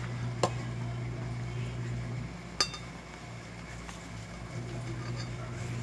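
Cutlery clinking against a plate twice, once about half a second in and again about halfway through, over a steady low hum.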